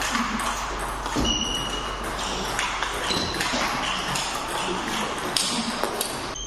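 Table tennis rally: the plastic ball clicks sharply off the bats and bounces on the table at an irregular pace, one player chopping with a Nittaku DO Knuckle medium-pips backhand rubber.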